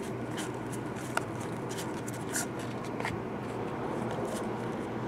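Glossy Prizm soccer trading cards slid one by one off a stack held in the hands: light swishes and small clicks of card against card, with a steady low room hum underneath.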